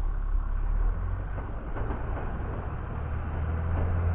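A vehicle's engine running with a steady low hum, pushing through a deeper patch than expected; the hum grows a little stronger near the end.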